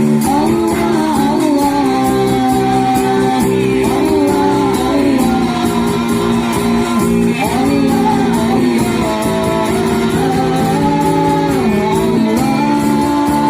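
Sholawat, an Islamic devotional song, sung with a wavering, held melody over steady instrumental accompaniment.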